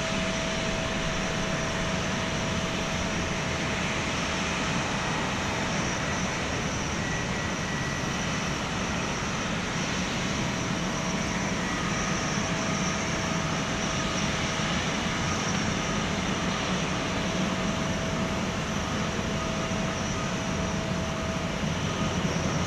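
Airbus A350-900's Rolls-Royce Trent XWB jet engines running steadily at idle: an even rush of jet noise with a steady whine through it.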